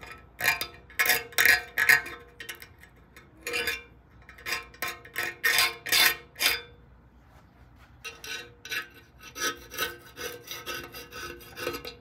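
Hand scraper blade scraping loose, brush-applied gray paint and rust off the steel front fender of a 1975 Norton, in repeated short strokes. The strokes pause briefly a little past halfway, then resume faster.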